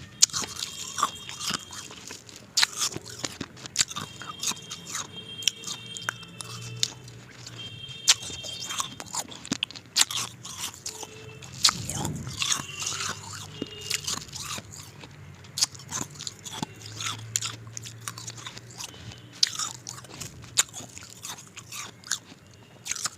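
Ice being bitten and crunched between the teeth close to the microphone: a dense, irregular run of sharp crunches with chewing in between.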